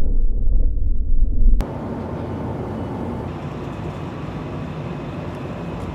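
Deep rumble from a target boat's explosion, cutting off abruptly about a second and a half in. Then a steady rushing hiss of wind and sea.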